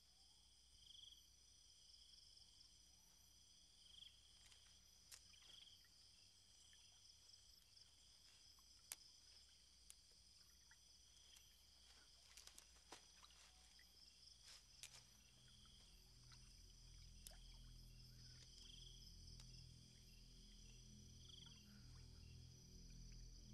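Faint night-insect chorus: a steady high trill with small swells, and scattered faint clicks. A low hum comes in about two-thirds of the way through.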